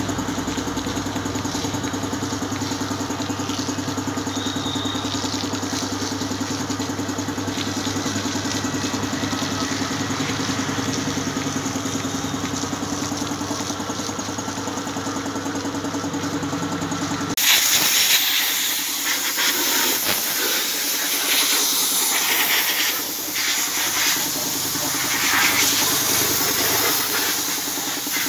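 Pressure washer at work: a steady motor hum under the hiss of the water jet rinsing foam off a motorcycle. About 17 seconds in, the hum cuts out abruptly and a louder, harsher hiss takes over.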